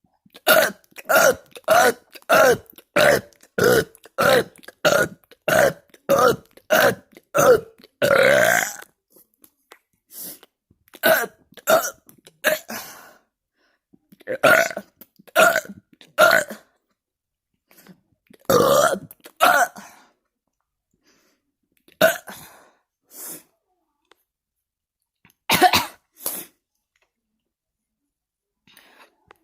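A man burping over and over: a quick, even run of short burps, about two a second, that ends in one longer burp, then single and paired burps with pauses between them.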